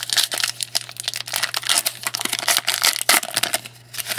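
Foil trading-card pack wrapper crinkling in the hands as it is torn open, a dense run of rapid crackles that eases off near the end.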